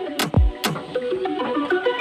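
Background music with an electronic beat: deep kick drums that drop in pitch and a melody of short, stepped notes.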